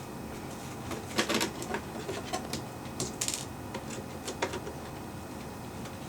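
Scattered small clicks and taps of plastic clock parts being handled and pried during disassembly of a quartz wall clock, in two short flurries with a few single clicks after.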